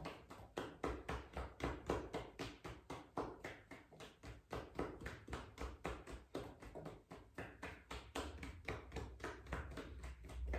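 Fists tapping on the front and back of the thigh in a quick, even rhythm, about four soft taps a second: percussive self-massage of the leg.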